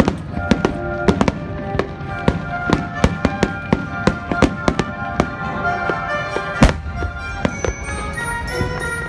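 Fireworks going off in a rapid, irregular string of bangs, the strongest bang a little past the middle, with music playing throughout.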